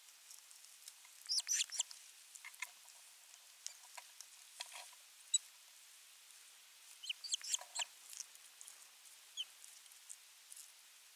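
Ospreys at the nest giving short chirping calls, in two quick bursts about a second in and again around seven seconds in, with a few single chirps between.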